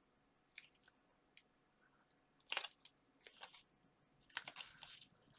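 Foam pads and paper being handled for a card: a few faint ticks, then two short crinkly rustles about two and a half and four and a half seconds in, as the backing is peeled off the foam pads and they are pressed in place.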